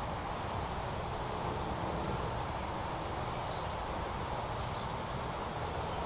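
Steady outdoor background noise: a low rumble and even hiss with a thin, unchanging high-pitched tone over it, and no distinct events.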